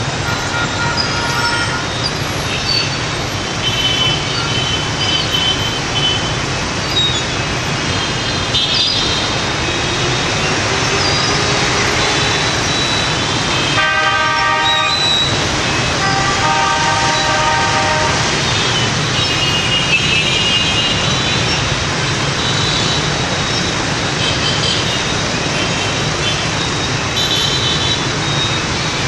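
Dense rush-hour traffic, mostly motorbike engines over a steady road hum, with short horn toots and beeps every few seconds. The longest and loudest run of honking comes about halfway through.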